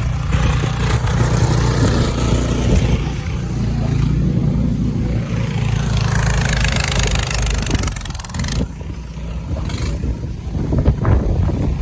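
An engine running steadily at low, even revs, its hum easing off about two-thirds of the way through as wind noise on the microphone grows.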